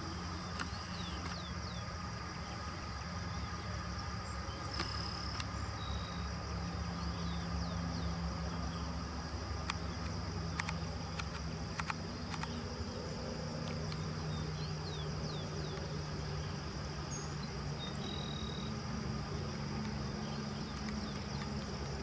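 Steady chorus of insects trilling without pause, over a low, steady hum of a distant engine, with a few faint clicks.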